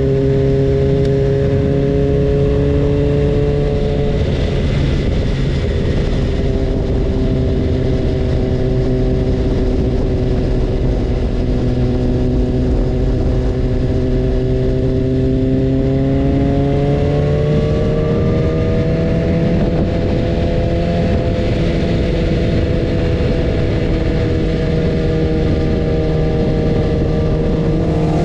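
BMW S1000RR's inline-four engine running at steady revs under a dense rush of noise, with a brief break in its note about four seconds in and a gentle rise in revs about two-thirds of the way through.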